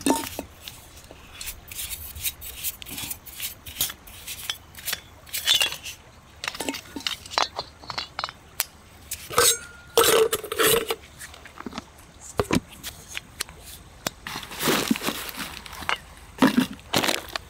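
Parts of a Jetboil Flash camp stove being taken apart and handled: irregular clicks, clinks and rattles of the metal and plastic burner, cup and canister, with a brief ringing clink about ten seconds in and scuffs of things set down on stony ground.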